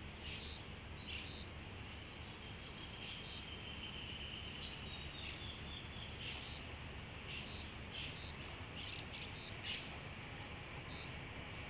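Birds chirping: short high calls repeated at irregular intervals over a faint, steady low rumble.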